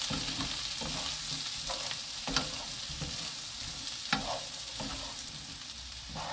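Two wooden spatulas tossing sliced cucumber in a hot nonstick frying pan, scraping and knocking lightly against the pan, over a steady sizzle of the cucumber in sesame and perilla oil.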